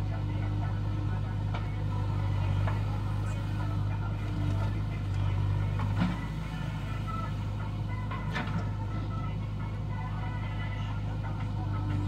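JCB backhoe loader's diesel engine running steadily under load as the backhoe digs and lifts mud. Two sharp knocks stand out, one about six seconds in and one around eight seconds.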